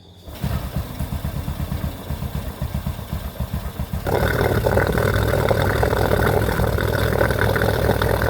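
Honda Supra underbone motorcycle's single-cylinder four-stroke engine starting about half a second in and idling with a pulsing beat, then running louder and steadier from about four seconds in.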